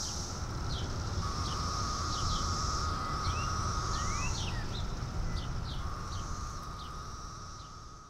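Brood X periodical cicadas singing: a steady high chorus, with a long droning call that drops in pitch as it ends about four seconds in and another starting near six seconds. Birds chirp and whistle over it, and the whole fades out near the end.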